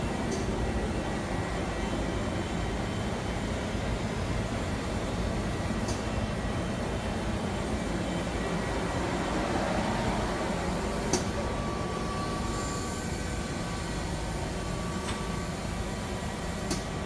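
Steady mechanical hum and whir from a powered-up Mazak Multiplex 6200Y CNC lathe and its auxiliary units, with a few light clicks.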